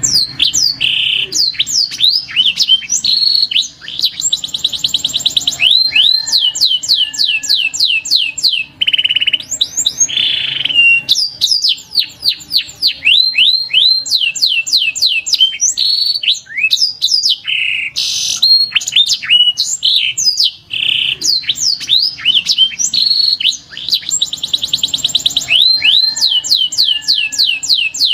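Domestic canary singing a continuous song of fast trills, quick downward-sweeping whistles and buzzy rolls. The same phrase sequence comes round again about 20 seconds in, as from a looped recording.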